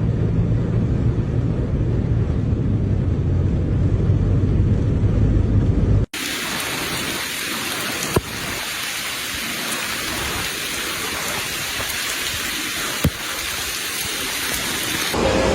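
Heavy rain. A low rumbling roar lasts about six seconds, then breaks off abruptly into a steady rain hiss, with two short sharp cracks in the rain section.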